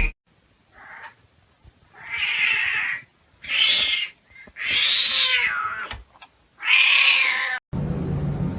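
A cat meowing: a faint short meow and then four loud, long yowling meows, each about half a second to a second long.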